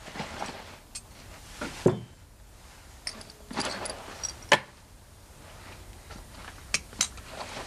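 Several small sharp clinks and taps, spread unevenly over a few seconds, with faint rustling between them, as of glass bottles and small objects being handled.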